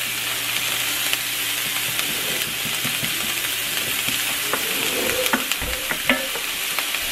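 Diced onions sizzling steadily in oil in a hot skillet, stirred with a spatula that scrapes the pan a few times near the end.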